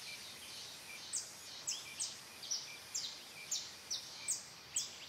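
Forest ambience: sharp, high chirps that drop quickly in pitch, repeating about twice a second over a steady hiss.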